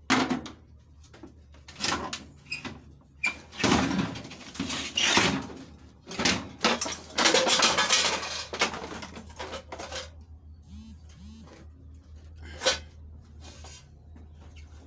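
Knocks, scrapes and rattles of a discarded microwave oven and things around it being shifted and lifted by hand, busiest and loudest in the first ten seconds, then quieter with one sharp click near the end.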